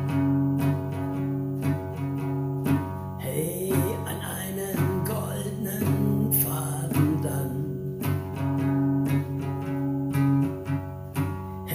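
Acoustic guitar strumming chords, each chord held for a second or two before the next strum, with no singing.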